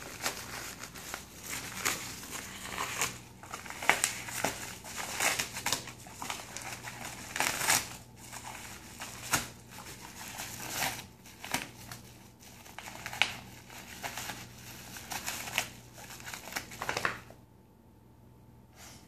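A dog tearing and chewing apart a yellow paper envelope: irregular bursts of paper crinkling and ripping, stopping about two seconds before the end.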